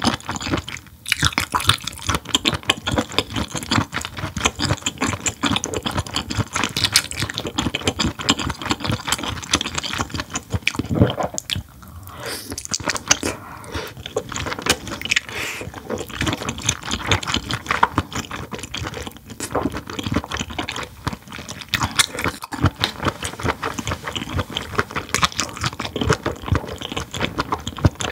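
Close-miked chewing of whelk meat, a steady run of wet, squishy mouth clicks and smacks with no pauses.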